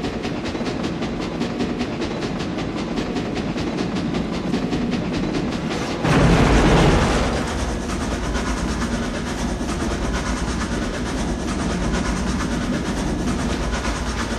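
Train sound effect: a moving train with a fast, even rhythmic clatter. About six seconds in, it surges suddenly louder with a deep rumble, then settles into a steady rushing run.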